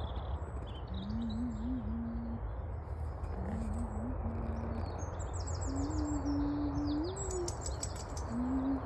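Small birds chirping in short high bursts, mostly in the second half, over a steady low outdoor rumble. A low, wavering call repeats four times in phrases of one to two seconds.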